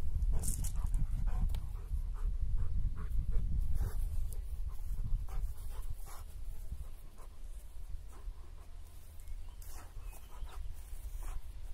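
Rottweiler panting and snuffling with its nose to the grass, over a low rumble. Short sharp sniffs come at irregular intervals throughout.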